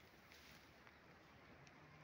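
Near silence: faint outdoor ambience with a few faint short ticks.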